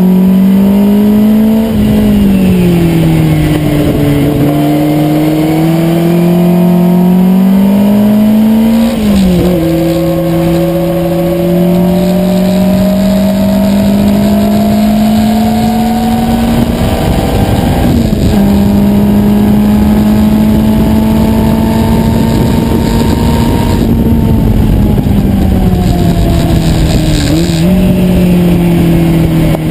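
Lola Mk1 sports racing car's engine heard from its open cockpit, running steadily at part throttle behind the safety car. Its note rises and falls briefly near the start, drops sharply about nine seconds in, climbs slowly, and drops sharply again near the end.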